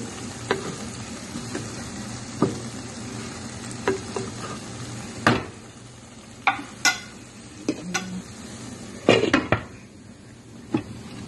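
Keema sizzling in a steel pot while a wooden spoon stirs it, scraping and knocking against the pot. Near the end there is a quick cluster of sharp clinks as a glass lid is set on the pot.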